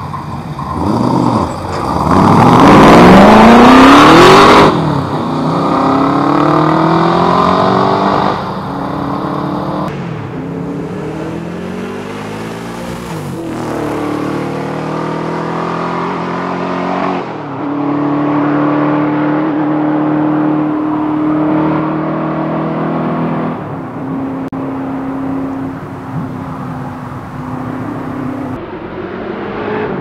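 Holden VH Commodore SS's V8 engine revving hard as the car passes at speed, loudest about two to four seconds in with the pitch rising then dropping away. It then revs up through the gears again and again, with a steadier held note in the second half.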